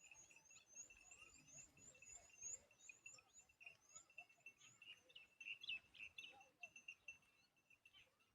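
Faint, rapid high-pitched chirping of small birds: a steady run of short notes with quick rising notes above them.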